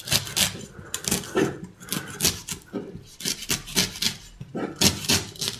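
Kitchen knife shaving and cutting the top off a young, peeled drinking coconut on a wooden cutting board: a string of short scraping cuts and knocks at uneven intervals.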